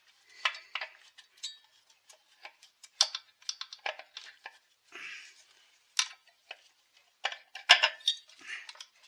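Small metal and plastic parts and hand tools clicking, clinking and scraping irregularly as a chainsaw is worked on by hand, with a louder cluster of clicks near the end.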